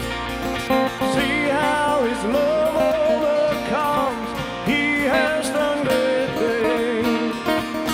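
Live band playing a worship song: strummed acoustic and electric guitars, bass guitar and drums, with a male lead voice singing a gliding melody over them.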